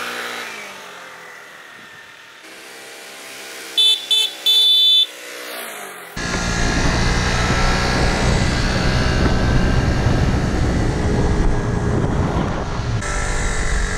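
Vespa scooter's engine fading as it rides away, then coming back; the scooter's horn toots three times about four seconds in, two short and one longer. From about six seconds in, loud wind rushing over the microphone of a camera riding on the moving scooter.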